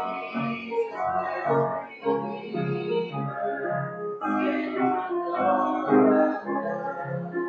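A church congregation singing a hymn together, with instrumental accompaniment.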